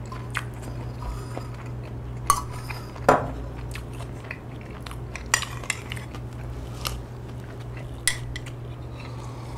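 Metal spoon clinking now and then against ceramic bowls and plates, about half a dozen separate sharp clicks, over a steady low hum.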